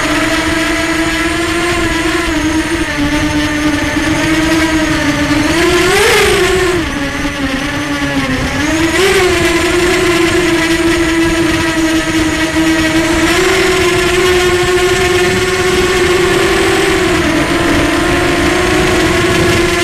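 Electric motors and propellers of a small radio-controlled aircraft, heard from its onboard camera: a steady whine whose pitch shifts with the throttle, swelling up briefly about six and nine seconds in.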